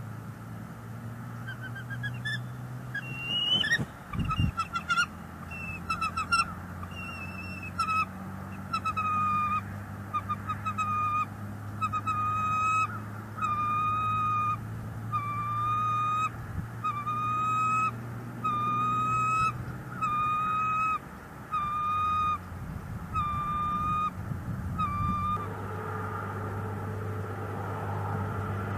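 Bald eagle calling: a series of about twenty short, high piping notes, roughly one a second, stopping a few seconds before the end. A steady low hum runs underneath.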